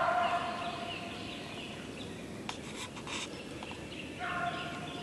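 Rabbit hounds baying as they run a swamp rabbit's trail, long drawn-out voices that die down for a couple of seconds mid-way and pick up again near the end. A few sharp clicks come in the middle.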